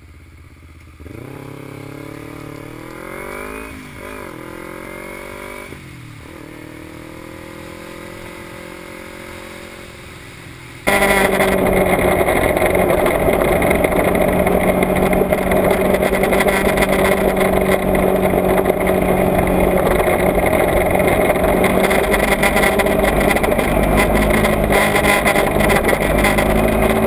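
Sport motorcycle engine accelerating, its pitch rising and falling with throttle and gear changes. About eleven seconds in it switches suddenly to loud wind rush on the camera microphone, with the engine running steadily at cruising speed.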